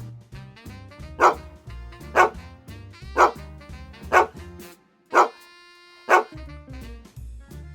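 A dog barking, six sharp barks about a second apart, over background music.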